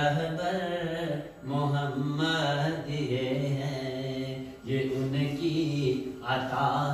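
A man's voice reciting a naat unaccompanied, an Urdu devotional chant in long, held melodic phrases. He breaks for breath about a second and a half in and again near the five-second mark.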